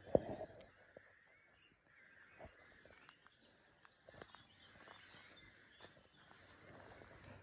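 Irregular faint crackles and snaps of dry twigs and cut brambles under footsteps, the loudest right at the start, with faint birdsong behind.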